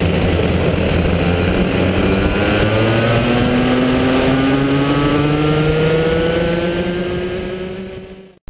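A pack of Daytona DMAX racing karts' engines accelerating together, heard from onboard one of the karts. Several engine notes climb steadily in pitch as the karts gather speed, and the sound fades out near the end.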